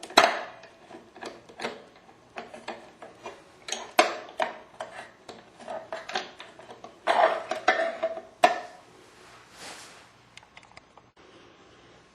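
Irregular small clicks and scrapes of a screwdriver and mounting screw against the metal plate as a replacement timer motor is screwed back onto a Fleck 5600 softener valve. The clicking thins out and goes quiet near the end.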